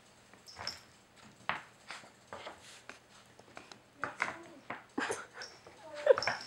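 A Norwich terrier puppy nosing and pawing at a Nina Ottosson Dog Fighter wooden puzzle board: irregular knocks and clicks of the wooden pegs and sliders as it searches for treats, with the loudest knock near the end.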